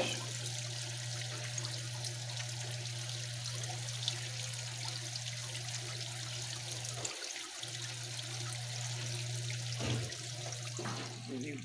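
Frigidaire 1-18 washing machine running with its recirculation pump spraying water down onto a soaked load in the tub, a steady hiss of splashing water over a low, even hum from the machine that drops out briefly about seven seconds in. A sharp knock sounds right at the start.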